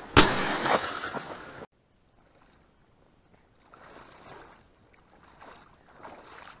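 A loud, sudden burst of noise right at the start, cut off abruptly after about a second and a half. Then a man wading through shallow marsh water, his steps sloshing and splashing irregularly.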